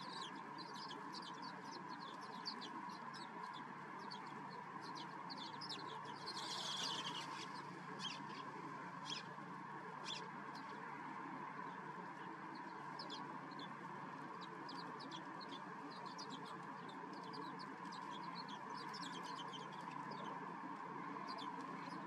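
Sparrows chirping: many short, high chirps throughout, thickening into a quick run of calls about seven seconds in, over a steady background noise.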